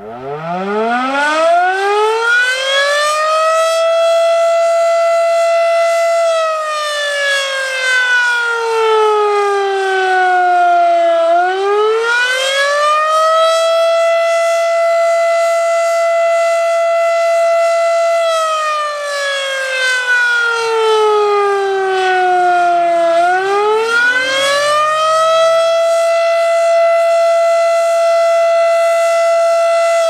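Federal Signal Model 5 outdoor warning siren winding up from a standstill and then sounding the attack signal: a single loud wailing tone that holds high for several seconds, slides slowly down over about five seconds, then climbs quickly back up, twice over.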